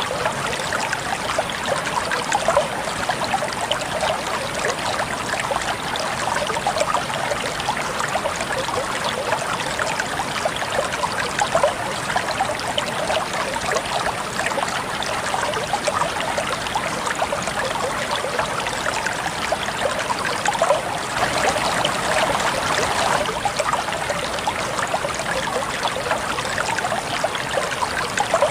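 River water running steadily with a continuous babble and trickle.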